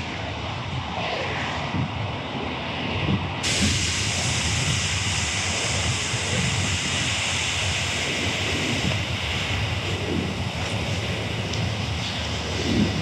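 Ocean surf breaking and washing over rocks in a steady rush of noise, with wind on the microphone. About three and a half seconds in, the hiss abruptly becomes brighter and fuller.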